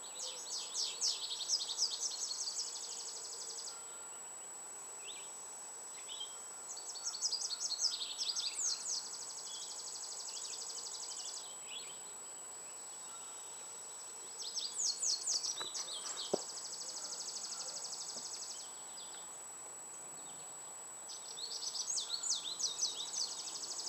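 A songbird repeating the same song four times, about seven seconds apart: each song a quick run of sliding high notes followed by a fast buzzy trill. A steady high-pitched whine sits underneath, and there is one sharp click partway through.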